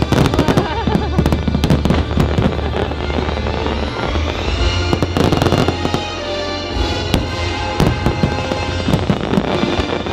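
Aerial fireworks bursting and crackling in rapid, irregular succession, with music playing underneath.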